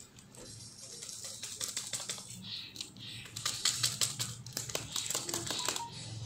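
A plastic jar with a screw cap handled and worked right at the microphone: a rapid, irregular run of plastic clicks and rattles. It starts faintly, grows busy about a second and a half in and is loudest around the middle.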